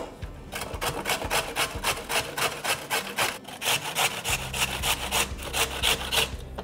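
A carrot being grated on a metal box grater: rapid, even scraping strokes, about four a second, that stop shortly before the end. A single sharp knock comes at the very start.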